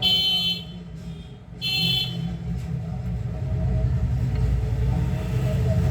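Two short, high electronic beeps, the second about a second and a half after the first, over a steady low hum.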